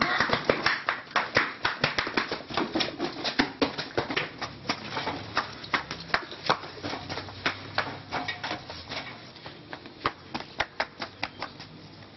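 Hurried footsteps of people running on a hard path: quick, irregular slaps, several a second, that thin out and fade near the end.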